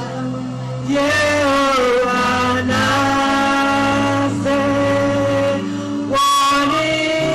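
Church choir singing a gospel song over held bass notes, the sung notes long and sustained and shifting pitch every second or two.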